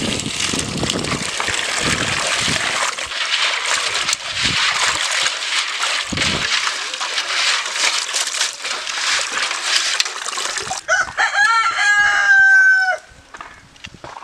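Water pouring from a pipe and splashing into a metal basin of live crabs as they are rinsed by hand. About eleven seconds in, a rooster crows loudly, a rising call held for about two seconds.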